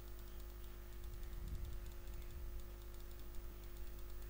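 Faint, irregular rapid clicking of a computer's input devices, heard over a steady electrical hum.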